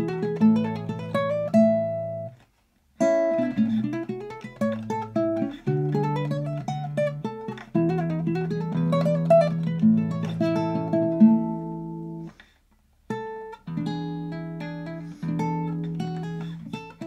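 An 1836 Louis Panormo guitar played fingerstyle: quick rising scale runs and melody notes over held bass notes. The playing stops twice into brief silence, a few seconds in and again about three-quarters of the way through, before each new phrase.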